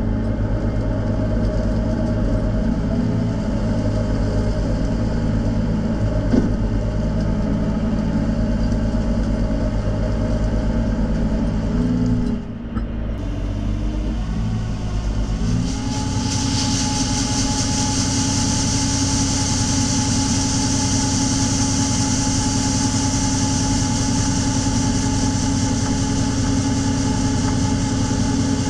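The diesel engine of harvest machinery, such as a tractor or combine, running steadily under a constant drone. About halfway through the note shifts, and a steady higher whine and hiss join in.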